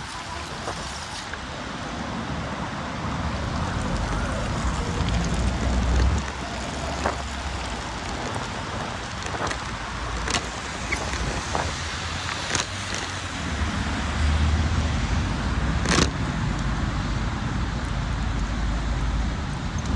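Steady noise of a bicycle ride along a wet road in heavy rain, with swells of low rumble and a few sharp clicks, the sharpest about three quarters of the way in.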